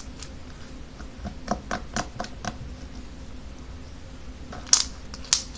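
Handling sounds of slime in a plastic container: a quick run of small clicks and squishes, then two sharp squelching pops near the end.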